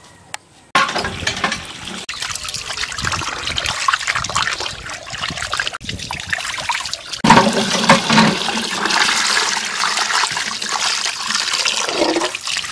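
Water from a hand pump gushing into a steel bowl and splashing over its rim onto concrete, while fish are rubbed and rinsed in it by hand. It starts suddenly about a second in, breaks off briefly near six seconds, and is louder after about seven seconds.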